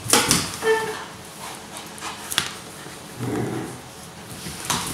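A rubber ball hits a tiled floor with a couple of sharp knocks as a Staffordshire Bull Terrier puppy dashes after it. There is a short high yip just under a second in, then a few scattered clicks on the tiles.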